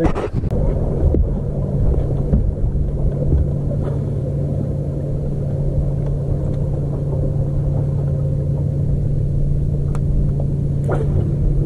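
Boat motor running steadily: a constant low hum over a rumble.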